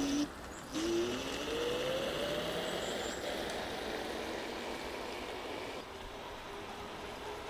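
Electric scooter's wheel hub motors (2500 W on each wheel) whining, the pitch rising steadily as it accelerates from about a second in, over steady wind and tyre noise; a steadier whine comes in near the end.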